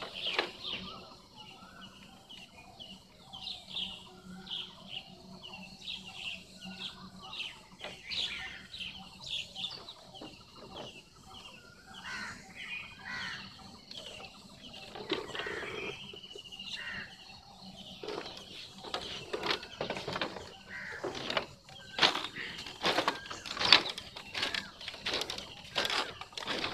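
Small birds chirping and twittering in a steady chorus. From about two-thirds of the way in, this is joined by a louder run of sharp knocks and clatters: footsteps on the split-bamboo slats of a bamboo footbridge.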